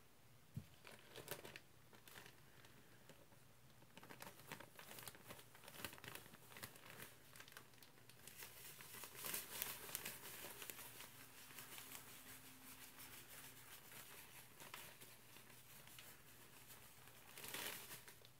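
Roma granular laundry detergent powder sprinkled onto a wet car sponge in a sudsy sink: a faint, dense crackle of grains landing. It is heaviest about halfway through, with another short burst near the end.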